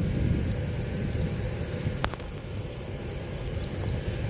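Wind buffeting the microphone in a low, uneven rumble, with a single sharp click about two seconds in.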